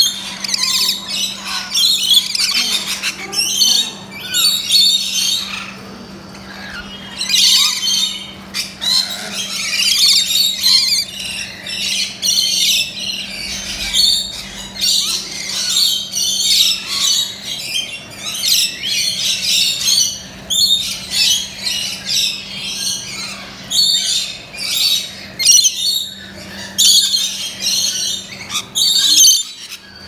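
A flock of lorikeets, rainbow lorikeets among them, calling: many high-pitched squawks and chatters in quick succession, overlapping one another, over a steady low hum.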